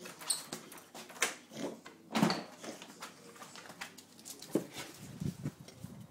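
An English bulldog moving about, with a few sharp clicks and knocks about a second apart in the first half and softer scuffs later on.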